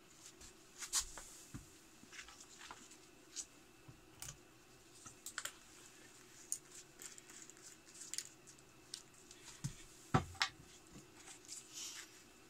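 Light, scattered clicks and taps of a bottle, a small cup and a paintbrush being handled and set down on a plywood workbench, with one louder knock about ten seconds in.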